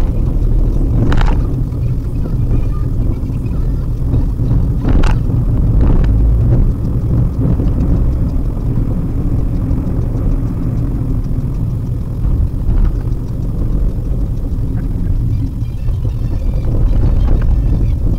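Steady low rumble of a Maruti Suzuki WagonR driving, heard from inside the cabin, with a few short sharp knocks about a second in and around five and six seconds.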